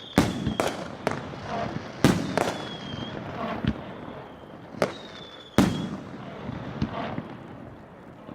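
100-shot firework cake (2-inch shells) firing: three loud bangs a few seconds apart with smaller cracks and pops between them, and a short high whistle trailing after the loud ones.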